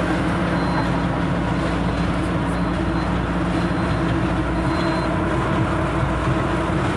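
Steady engine drone and road noise of a tow truck, heard from inside its cab while driving.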